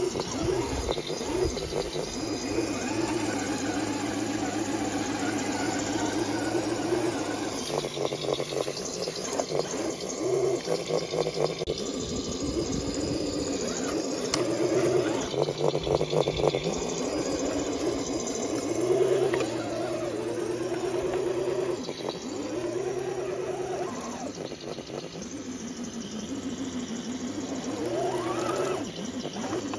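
1/10-scale RC rock crawler's electric motor and drivetrain whining, the pitch stepping up and down as the throttle changes, with tyres clattering over rocks in the middle and a rising whine near the end as it climbs.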